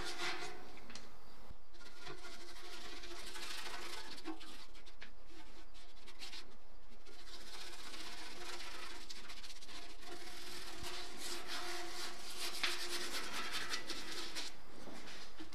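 Bristle paintbrush scrubbing liquid rust remover over rusty sheet steel, a continuous brushing and scratching.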